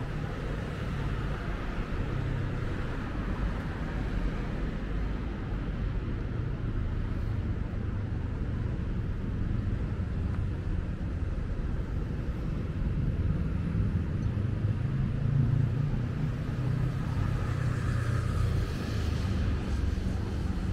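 Road traffic: a steady low rumble of passing cars, growing a little louder in the second half.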